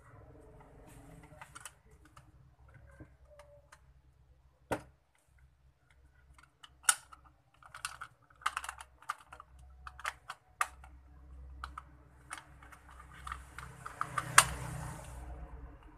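Irregular plastic clicks and knocks as the ear cup of a Rexus gaming headset is pressed back together and handled, the sharpest about seven seconds in and near the end, where a short rustle goes with them.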